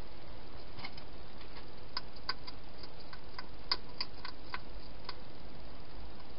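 Wild hedgehog eating from a bowl inside a plastic feeding box: a run of irregular, sharp little clicks of chewing and the bowl, over a steady hiss.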